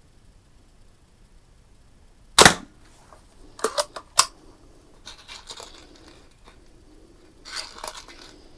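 A single shot from a Daisy 499B spring-piston BB gun, a sharp crack about two and a half seconds in, followed by a few quick clicks and some rattling handling noise.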